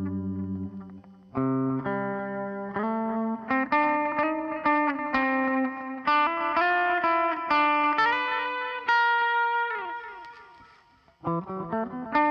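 Electric guitar with a Nordstrand Bonecrusher bridge humbucker wired in series, played through a Line 6 POD HD Pro X clean patch with effects. A chord dies away, then after a short pause comes a run of ringing single notes and double-stops. Near ten seconds the held notes slide down and fade, and new notes start near the end.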